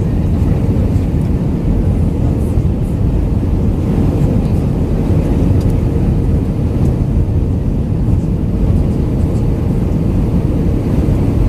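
Steady cabin noise inside an Airbus A319-112: a low, even rumble of its CFM56 engines and airflow, with a faint steady hum running through it.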